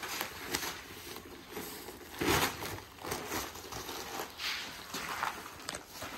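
Dry grain feed mix being handled and turned: irregular rustling, crunching scrapes, the loudest about two seconds in.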